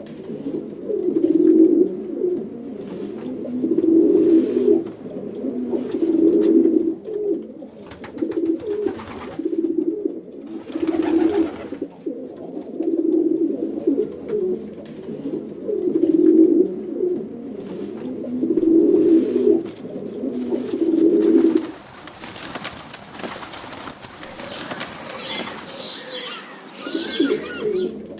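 Pigeon cooing: low coos repeated about every two seconds, breaking off for a few seconds near the end before starting again.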